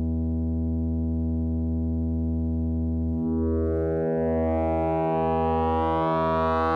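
Cre8audio Capt'n Big-O analog oscillator holding a steady low drone. About three seconds in, its wavefolder is brought in and bright overtones build up and shift, the tone growing richer toward the end.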